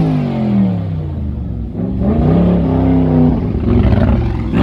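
Tuned 740 hp Noble M600's twin-turbo V8 being revved hard: the revs fall away at first, climb again about two seconds in and hold for about a second, then drop, with a short blip near the end.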